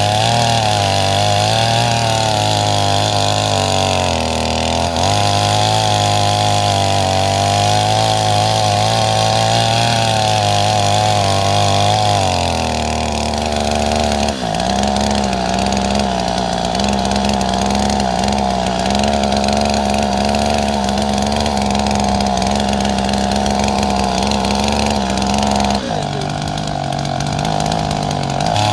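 Gasoline chainsaw's two-stroke engine running at speed while its bar cuts into a tree trunk. The engine note wavers continuously with the load, drops to a lower pitch about halfway through, and shifts again near the end.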